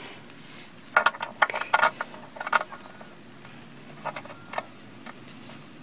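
Small galvanized metal latch on a wooden door being worked by hand, making a run of sharp metallic clicks and rattles about a second in and a few more clinks near the four-second mark.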